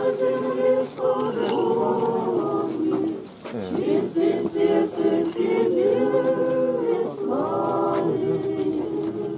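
Several voices singing an unaccompanied church chant in harmony, on slow held notes, with short pauses between phrases about three seconds in and again near seven seconds.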